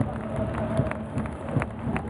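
Ice hockey arena crowd: a steady din of many voices with scattered sharp claps and clicks.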